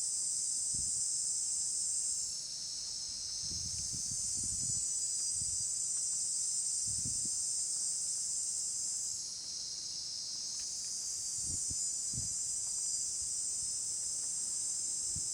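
A steady, shrill chorus of insects that thins for a moment twice, with a few soft low thumps.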